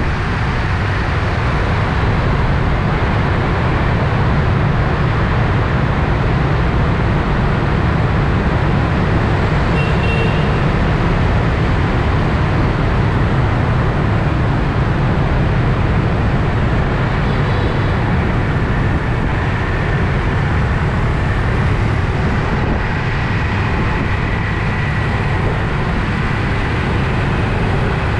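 Steady wind rush and engine and road noise from a moving motorbike in traffic, picked up by a GoPro mounted on the bike. Two brief high beeps cut through, about ten seconds in and again a few seconds later.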